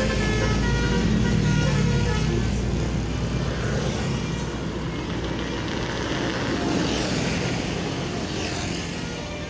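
A bus's multi-note telolet horn (Basuri V3) plays a quick tune of short notes over the rumble of the bus engine. The horn notes are clearest in the first couple of seconds, then fade into engine and road noise.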